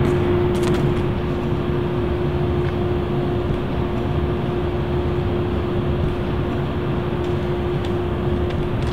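Steady mechanical drone with a constant hum running through it.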